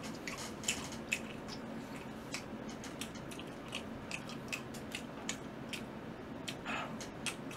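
A person chewing and biting yangnyeom fried chicken, with many small wet mouth clicks and smacks of the sticky glaze. A faint steady hum lies underneath.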